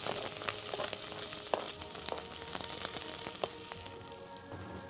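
Chopped onion sizzling as it fries in hot oil in a pot, with a few light clicks scattered through. The sizzle dies down about four seconds in.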